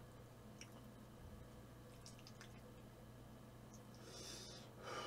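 Faint eating sounds: soft wet mouth noises and a few small clicks, with a short breathy rush near the end.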